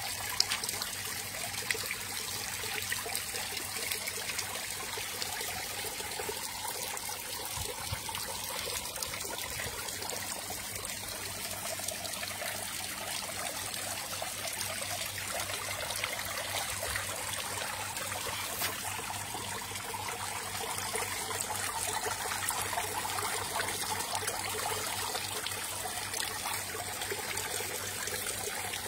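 Steady trickling water, a continuous fine splashing with no distinct strokes, growing a little louder after about twenty seconds.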